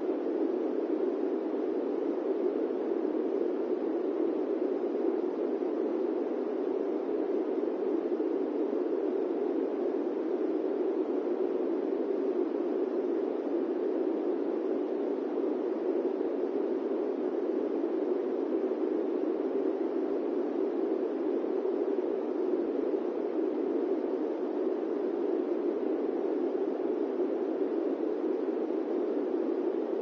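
Electric fan running steadily: an even, low rushing noise that never changes.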